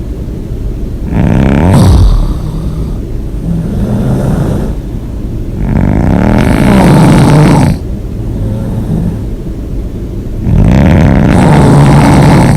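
A person snoring hard through an open mouth: three loud snores about four and a half seconds apart, with quieter breaths between them.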